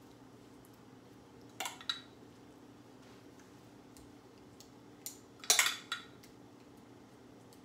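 A metal spoon scraping and clinking against a glass measuring cup while scooping out wet green seasoning, in two short bursts about a second and a half and five and a half seconds in, the second louder. A faint steady hum runs underneath.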